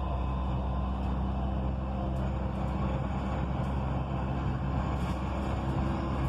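Dubai Metro train running along the elevated track, heard from inside the carriage: a steady low hum and rumble.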